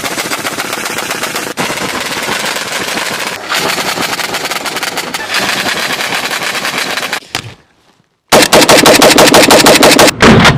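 Anti-aircraft autocannon firing in a long run of rapid shots. It breaks off about seven seconds in, and after a brief silence a rifle fires rapid, louder shots.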